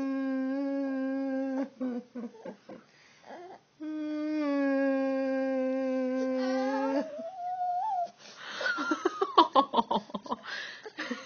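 Crying voices: two long, steady wailing cries, then a short rising wail, then a broken, sobbing cry that falls in pitch over the last few seconds. It is a person's mock crying and the crying it sets off.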